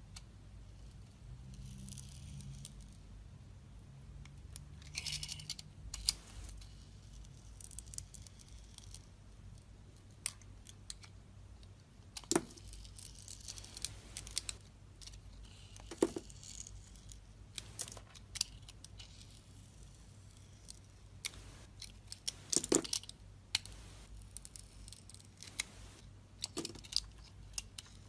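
A knife cutting and scraping into a bar of soap: scattered sharp clicks as the blade snaps through, between short scraping and crumbling stretches.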